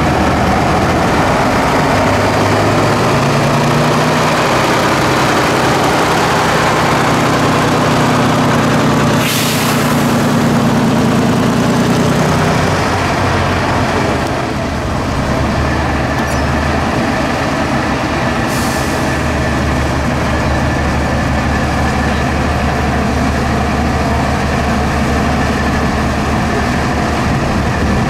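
Tatra 8x8 truck's diesel engine working under load as the truck crawls over a dirt obstacle. It revs up over several seconds, then drops to a lower, steady note about halfway through. Two short hisses of air break in, about a third and two-thirds of the way in.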